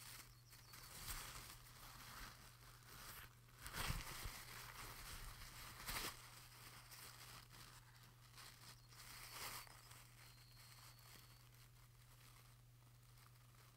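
Near silence: steady low hum and hiss with scattered crackles, the loudest about four and six seconds in, dying down to plain hiss near the end. It is the background noise of an old film's soundtrack transfer.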